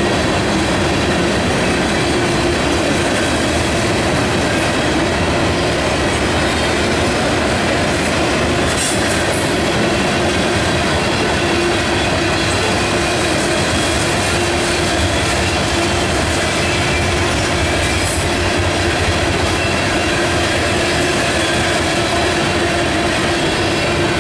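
Freight cars of a BNSF mixed freight train rolling past: a steady, loud rumble and clatter of steel wheels on rail with a constant tone running through it. Two brief high squeaks come from the wheels, about nine and eighteen seconds in.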